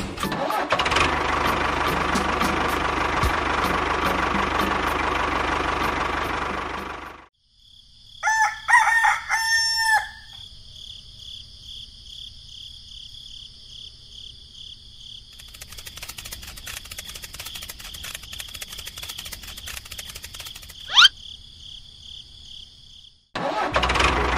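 A rooster crowing once, loud, about eight seconds in. Before it comes a steady loud noise that stops abruptly; after it, a steady high-pitched hum with a brief rising whistle near the end.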